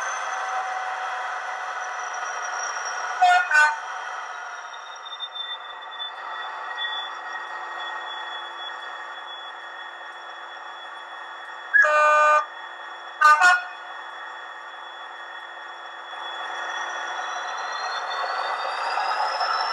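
Hornby HM7000 decoder playing its Class 66 diesel sound file through a small model-locomotive speaker. The engine winds down to a lower, steady idle, with two short horn toots a few seconds in. A louder horn sounds twice around twelve and thirteen seconds in, and near the end the engine revs up again with its pitch rising.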